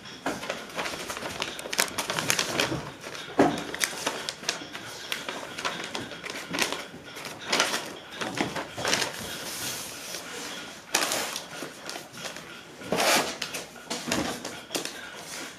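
Printed paper wrappers handled by hand: rustling, sliding and crinkling as the sheets are smoothed and folded, with irregular light taps and pats.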